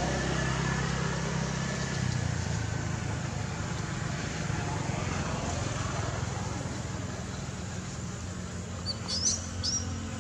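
Steady low engine-like rumble of distant traffic, with a few short high-pitched chirps near the end.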